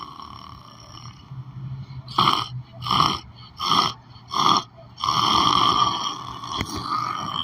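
A person snoring in sleep. About two seconds in come four short snorts in quick succession, followed by a longer drawn-out snore.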